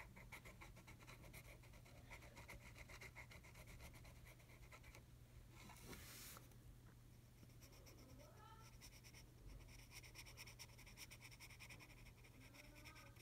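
Faint scratching of a felt-tip marker on paper as it colours in, in many quick repeated strokes, with a brief louder rustle about six seconds in.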